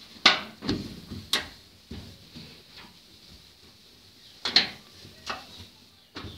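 A cloth being rubbed over a gas stove's top by hand, giving several short scuffs and knocks with quiet gaps between them. The loudest come about a quarter second in and at about four and a half seconds.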